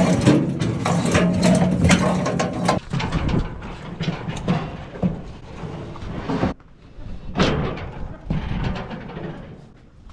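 Steel cattle crush rattling and clanking as a cow pushes forward into the head yoke, with several sharp metal knocks. A steady low hum in the first few seconds cuts off suddenly.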